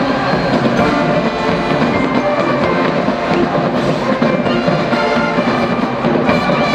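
College marching band playing on the field: brass and drums playing a loud, continuous passage.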